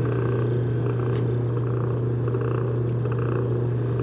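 Electric motor of a leather buffing wheel running with a steady hum while a thunderegg is held against the spinning wheel to polish it with cerium oxide, with faint on-and-off rubbing.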